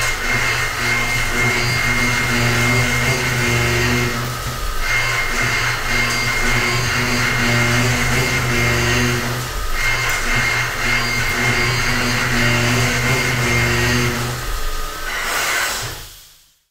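High-feed indexable-insert face mill on a CNC machining center cutting through a metal block: a steady, loud cutting noise with a low hum and a high whine. It breaks off briefly three times, then fades out near the end.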